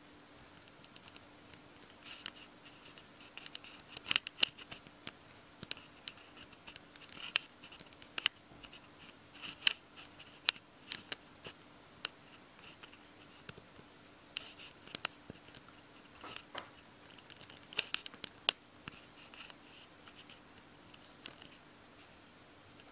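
Maltese puppy gnawing and scrabbling at a bristly ball toy: irregular scratchy rasps and sharp clicks, with louder bursts about four, ten and eighteen seconds in.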